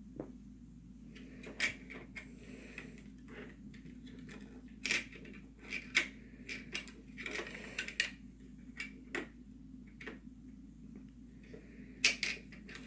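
Scattered light clicks and knocks of hard plastic toy pieces being handled, fitted together and set down on a wooden floor, with a couple of sharper taps near the end.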